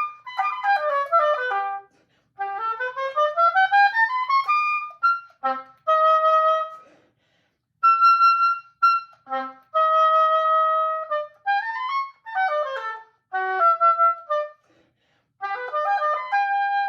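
Solo oboe practice: phrases of quick note runs, several climbing in fast rising scales, mixed with a few long held notes, broken by short pauses between phrases.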